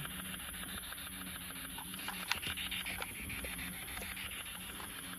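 P-SB7T spirit box scanning through radio frequencies, its speaker giving a steady hiss of static. There is a sharp click a little over two seconds in.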